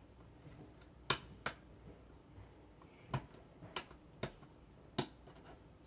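Plastic LEGO pieces clicking as they are pressed and snapped into place: about six sharp, separate clicks, two close together early and the rest spread out over the following seconds.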